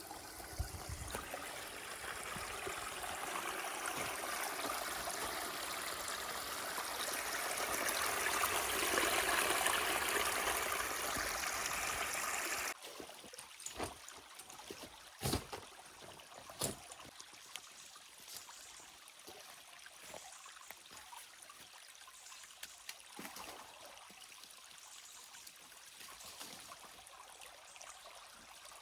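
Running stream water, a steady rushing that swells a little, then cuts off abruptly about halfway through. After that comes a much quieter faint water hiss, with a few sharp knocks.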